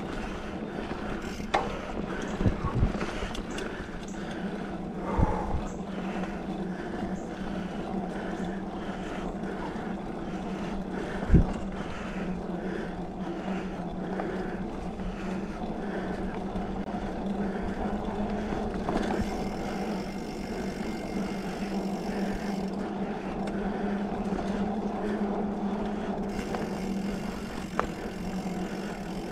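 2020 Specialized Fuse 27.5+ mountain bike ridden along a dirt singletrack trail: steady rolling and drivetrain noise with a few sharp knocks from bumps, the loudest about eleven seconds in.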